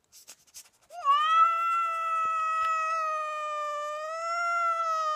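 A cat giving one long, steady yowl, starting about a second in after a few faint clicks.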